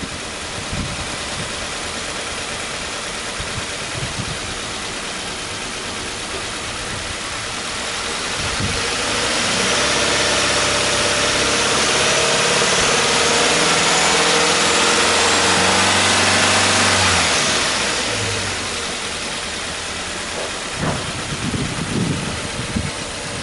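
Subaru Impreza G4 2.0i-S's 2.0-litre flat-four boxer engine, heard at the open engine bay. It idles steadily, then about eight seconds in the revs rise and are held up for about seven seconds in a free rev, then drop back to idle.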